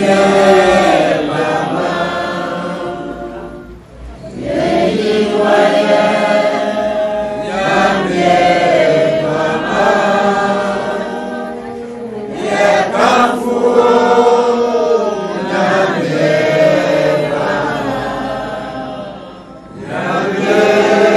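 A group of voices singing or chanting together in long phrases of about four seconds, with short breaths between them.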